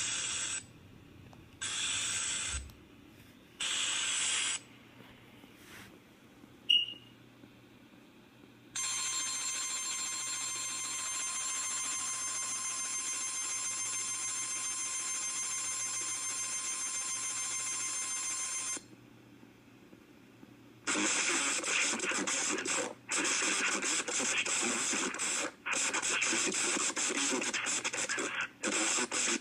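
Emergency Alert System alert for a severe thunderstorm warning. It opens with three short screechy data bursts about a second apart, then a steady attention tone for about ten seconds. After a short pause a harsh, choppy, static-like sound with brief breaks takes over for the last eight seconds.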